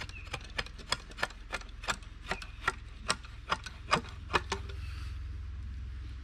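Knife shaving a wooden bow stave: quick short clicking strokes, about four a second, that stop about four and a half seconds in, over a low steady rumble.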